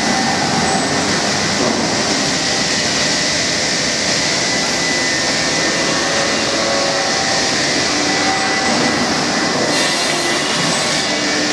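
CNC router machining center running steadily while machining a wooden stair tread, its spindle giving a steady high whine over the hiss of the dust extraction.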